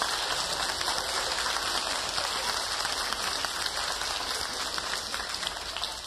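Audience applause: dense, steady clapping that begins to die down near the end.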